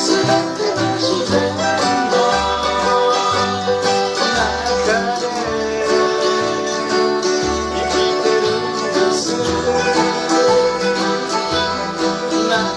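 Folk band music: plucked acoustic strings over a steady bass line, with a voice singing the song's lyrics.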